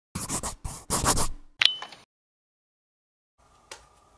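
Intro sound effect: three quick scratchy swishes followed by a sharp hit with a short ringing tone. After a pause, faint room noise with a small click near the end.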